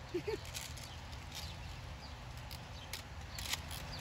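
Faint, scattered clicks from handling an airsoft AKS-74U that has stopped feeding BBs from its high-capacity magazine, over a quiet outdoor background. Two short, faint squeaks come near the start.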